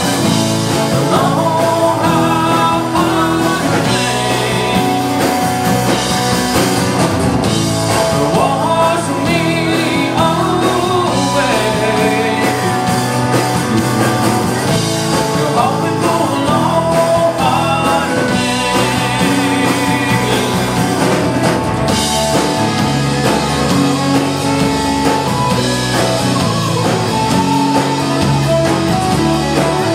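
Live rock band playing: acoustic and electric guitars over a drum kit, loud and continuous.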